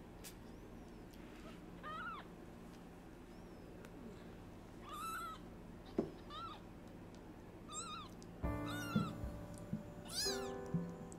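Newborn kitten mewing: about six short, high-pitched cries spaced a second or two apart. Background music comes in about three-quarters of the way through.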